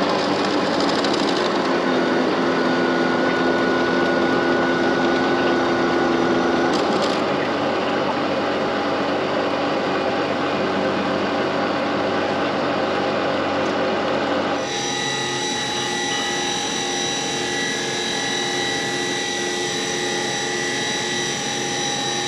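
End mill cutting an aluminum bar on a CNC knee mill: a steady, loud machining noise with held tones. About two-thirds of the way through it changes abruptly to a second, enclosed CNC machining centre milling the same aluminum, where a steady high spindle whine stands out.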